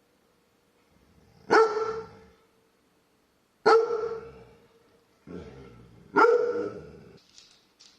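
An old dog barking: three loud single barks about two seconds apart, with a softer bark just before the last one, heard through a home security camera's microphone.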